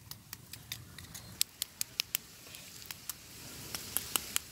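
Light, irregular clicks and scrapes of a bamboo stick knocking the charred, burnt-straw scales off a straw-roasted snakehead fish (cá lóc nướng trui).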